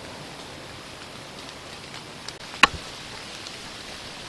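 A bow being shot: a single sharp, loud snap about two and a half seconds in, with a faint click just before it, over a steady background hiss.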